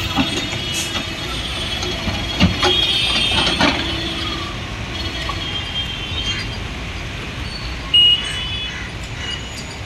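Tata Hitachi hydraulic excavator running while it digs, with scattered knocks and clanks from the bucket in rubble over the first few seconds. A short high beep sounds about eight seconds in.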